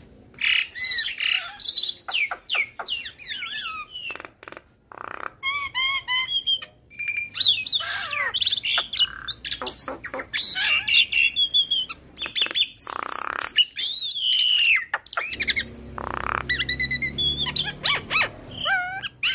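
Javan myna singing a fast, varied, nearly unbroken string of whistles, chirps, pitch glides and harsh squawks.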